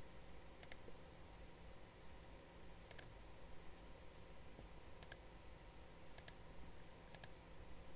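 About five light computer mouse clicks, a second or two apart, each a quick double tick, over a faint steady room hum.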